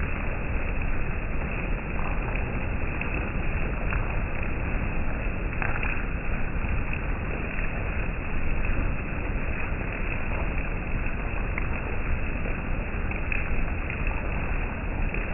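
Steady rain falling: an even, continuous hiss with a few faint ticks of single drops.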